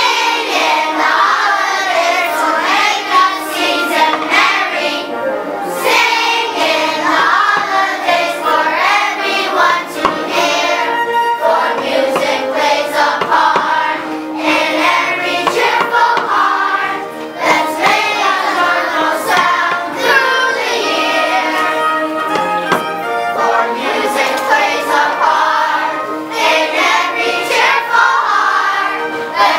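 A group of children singing a holiday song together as a choir.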